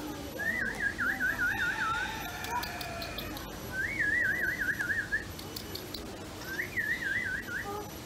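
A high warbling whistle, sounded three times, each time a pitch wavering quickly and evenly up and down after a short rise at the start.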